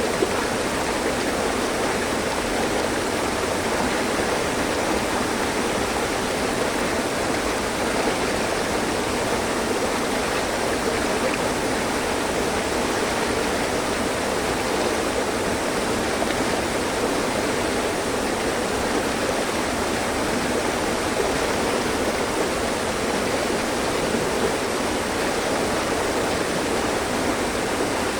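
Mountain stream flowing over rocks: a steady, unbroken rush of water.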